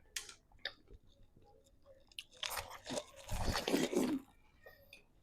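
Biting into and chewing watermelon flesh without hands, with wet crunching. It is sparse, scattered clicks at first, then heavy crunching from about two and a half to four seconds in.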